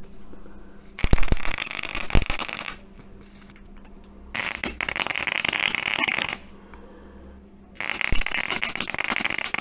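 Gasless flux-cored MIG welder arc crackling on car-body sheet steel in three bursts of about two seconds each, with short pauses between. It doesn't even sound right: the welder's power and wire speed are set too low.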